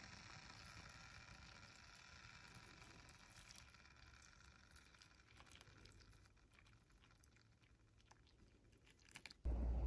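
A thin stream of water poured into a porcelain gaiwan onto tea leaves, a faint, steady trickle that slowly fades, with a few small drips and clicks. A low hum cuts in abruptly just at the end.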